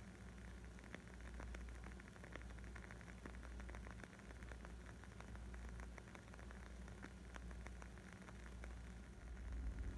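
Wood fire crackling: a dense patter of small, quick pops over a low steady rumble.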